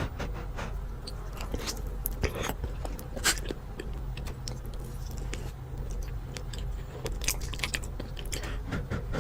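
Close-miked eating: a person biting and chewing fried fast food, with many scattered crisp crunches and wet mouth clicks.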